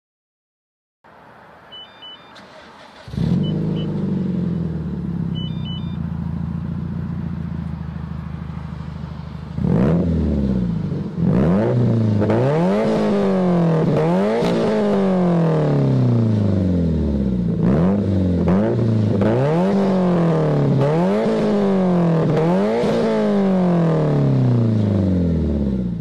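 Subaru WRX STI's turbocharged EJ flat-four, fitted with equal-length headers, an Invidia catted downpipe and a Greddy Ti-C exhaust. After a few short beeps it starts about three seconds in and idles steadily. From about ten seconds in it is revved again and again, the pitch rising and falling with each blip.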